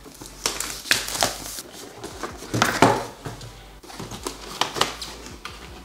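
Cardboard packaging scraping and rustling as a box is opened and the inner carton slid out, with irregular knocks and crinkles, loudest about halfway through.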